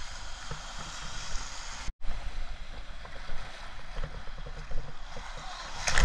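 Ocean surf washing in over the sand, with wind on the microphone, heard through a waterproof camera case; the sound drops out for a moment about two seconds in. Near the end a loud splash of water hits the camera.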